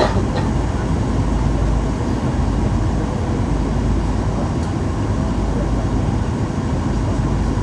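Steady cabin noise of a Boeing 737-800 in flight on approach: an even, deep drone of engines and rushing air. A short click sounds right at the start.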